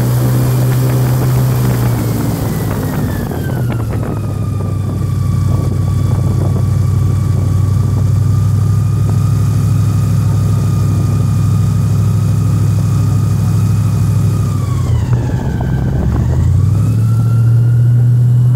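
Airboat engine and propeller running loud and steady. The pitch falls about two to four seconds in as it throttles back, dips sharply about fifteen seconds in, then rises again near the end as it speeds up.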